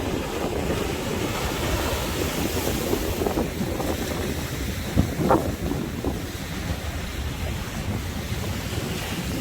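Sea waves washing, with strong wind buffeting the microphone in a steady low rumble; a brief louder surge about five seconds in.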